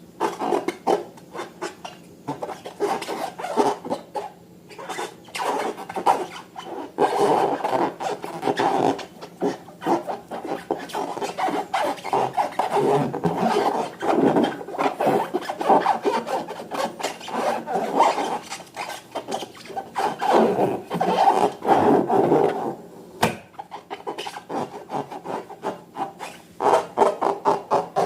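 Slime being worked by hand: a dense, irregular run of small sticky clicks and crackles. It thins out briefly near the end, then picks up again.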